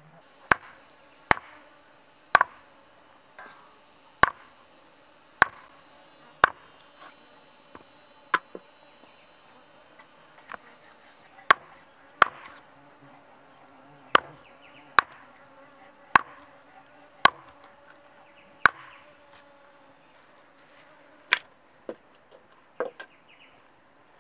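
Machete chopping a raw chicken into pieces on a wooden board: about seventeen sharp chops at an uneven pace, the last few lighter. Insects drone steadily behind.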